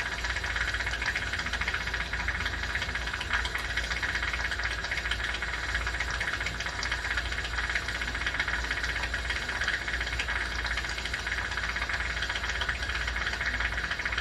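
Steady hiss of a jeweler's soldering torch flame over a constant low hum.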